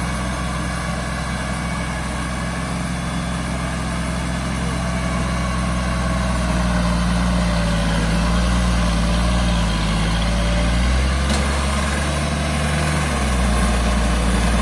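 Off-road 4x4's engine running steadily in a muddy water hole, its pitch shifting a little about eleven seconds in.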